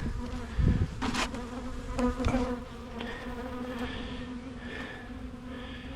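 Insect wings buzzing close to the microphone at an open beehive, with a wasp flying around among the honey bees. The buzz is steady and gets louder from about one to two and a half seconds in, with a dull thump and a couple of light knocks early on.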